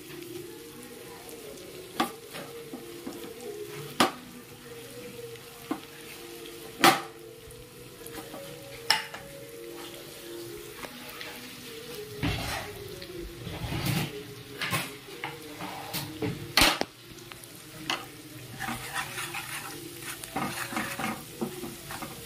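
Spice masala and par-boiled potatoes sizzling in hot oil in a pan, with a spatula stirring and knocking against the pan. The knocks come every couple of seconds at first and crowd together about halfway through. This is the stage where the masala is roasted before the stuffed brinjals go in.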